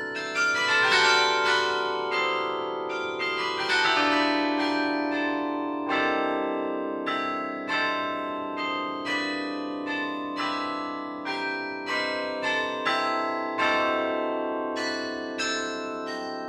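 The St. Rombout's Tower carillon played from its baton keyboard: a melody of struck bells with long ringing tails. A flurry of quick notes fills the first few seconds, a steadier run of notes follows, and the notes quicken again near the end.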